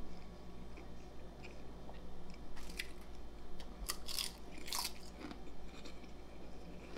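A person biting and chewing food close to the microphone, with a handful of crisp crunches about three to five seconds in.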